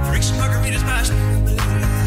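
Background music with heavy bass and a beat.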